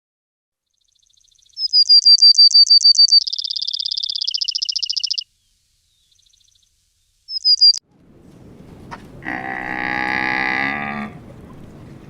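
A bird's rapid high-pitched trill of about ten notes a second that steps down in pitch partway through, with a short repeat of the trill later on. Then, about eight seconds in, a longer, lower pitched animal call rises and fades.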